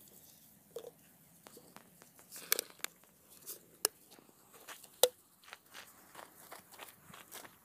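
Scattered crunches and sharp clicks of empty plastic bottles and dry straw being handled, the loudest click about five seconds in.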